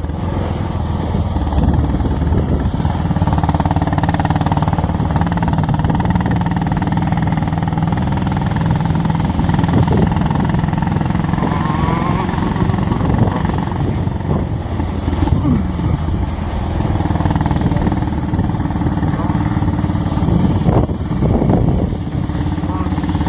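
Motorcycle engine running under way, its pitch stepping up and down as the throttle changes, over steady riding noise.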